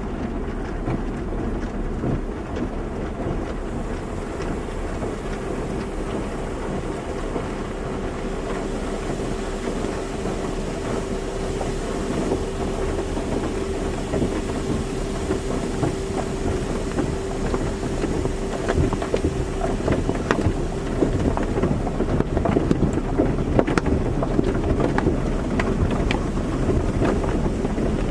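Car wash running: water spraying and pattering against a car, with a steady machine hum from about five to twenty seconds in and heavier, spikier patter in the last few seconds.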